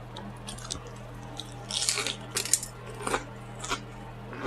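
Close-miked chewing with wet mouth clicks and smacks, and a short crackly burst about two seconds in, over a low steady hum.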